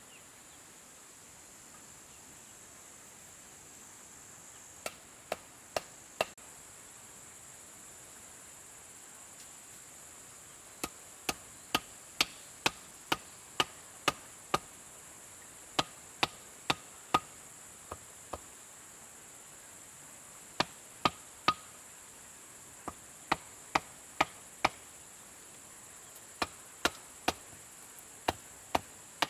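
Repeated sharp strikes of a hand tool on wood, chopping in runs of three to eight blows at about two a second, with short pauses between runs. A steady high insect drone runs underneath.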